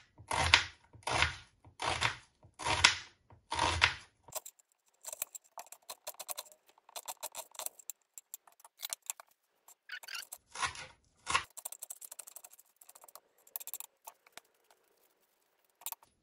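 Kitchen knife slicing a red onion on a plastic cutting board: about six even cuts in the first few seconds, each ending in a knock on the board. Then come runs of lighter, quicker knife taps and scrapes, with two harder cuts a little past the middle.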